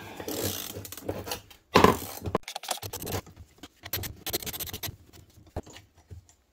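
Steel hand tools and small metal snowmobile skid parts clinking, scraping and clattering on a workbench as the parts are worked apart. The sounds come in irregular bursts, the loudest about two seconds in, with a sharp click near the end.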